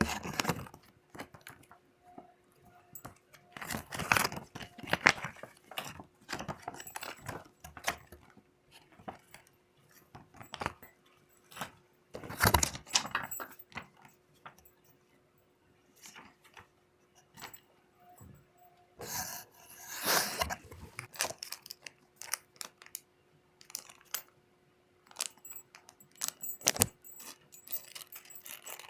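Packaging and parts being handled during an unboxing: rustling and crinkling of wrapping in irregular bursts, with scattered sharp clicks and knocks, over a faint steady hum.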